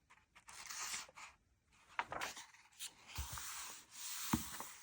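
Paper pages of a magazine being turned and handled: several spells of rustling and sliding paper, with a sharp crinkle or tap about four seconds in.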